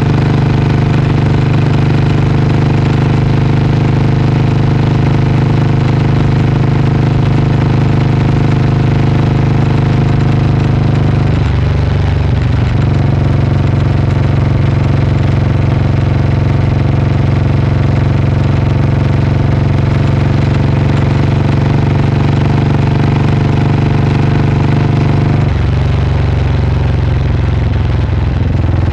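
Vintage single-cylinder motorcycle engine running steadily under way, loud and close. The engine note changes abruptly twice, about a third of the way in and again near the end.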